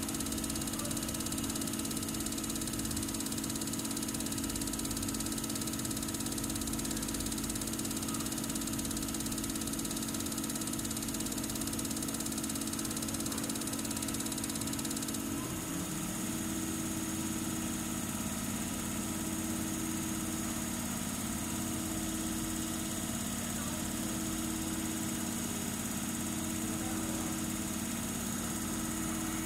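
Common-rail injector test bench running steadily, its drive motor and high-pressure pump making a constant mechanical hum while a Denso injector is tested. About halfway through, the hum changes pitch with a short glide and then settles, as the rail pressure is raised from 100 to 135 MPa.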